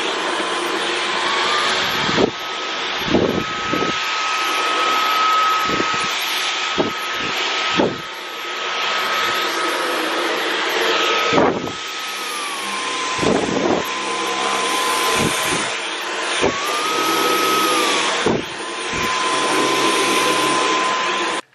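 Dyson V11 Absolute Pro cordless stick vacuum running with its motorised brush-bar head on a rug: a steady high motor whine over a rushing hiss of air. The whine steps up in pitch early on, drops back about two-thirds of the way through, and briefly rises and falls again near the end, with a few short knocks as the head is pushed about.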